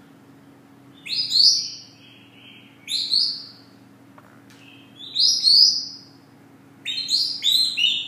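Congo African grey parrot whistling: four loud high chirping calls about two seconds apart, each a quick run of stepped notes.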